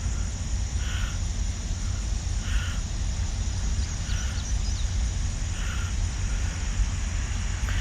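A crow cawing over and over, about one caw every second and a half, over a steady low rumble and a high, steady insect drone.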